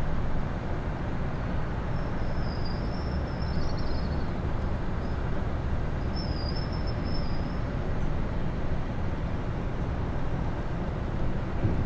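Steady low engine rumble of heavy machinery, with two brief high-pitched chirps, one about two and a half seconds in and another about six seconds in.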